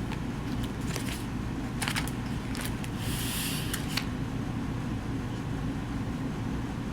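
Eating sounds of fried chicken: scattered small crisp clicks and crunches, with a brief crackling rustle about three seconds in, over a steady low background hum.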